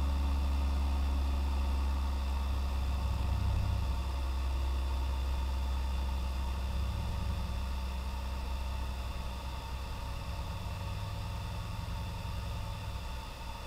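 Car engine running with a steady low drone, heard from inside the cabin as the car drives, easing off slightly toward the end.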